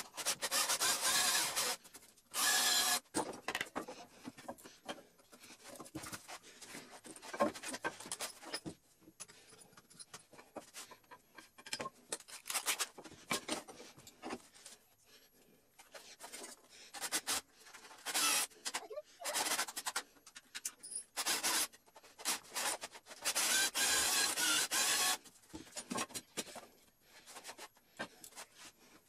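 Hand-held cutting tool scraping and paring wood out of a round recess in a pine strip, in irregular bursts of rasping strokes with short pauses between. The strokes are busiest near the start and again near the end.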